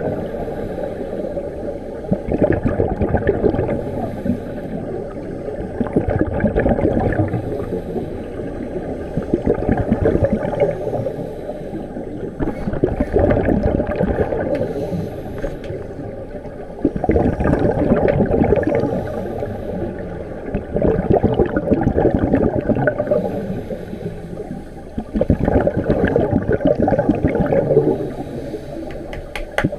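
Scuba regulator exhaust bubbles heard underwater: a crackling, bubbling rush that swells about every four seconds with each exhaled breath and eases between them.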